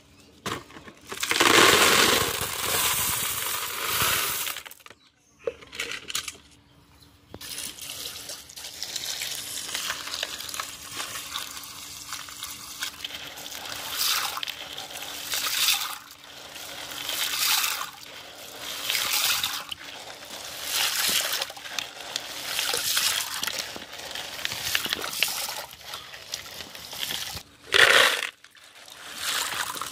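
Water rushes loudly into a plastic tub for the first few seconds. Then handfuls of sea shells are scrubbed and sloshed in the water, the wet shells clattering against each other in swells about every second and a half, with a sharper, louder clatter near the end.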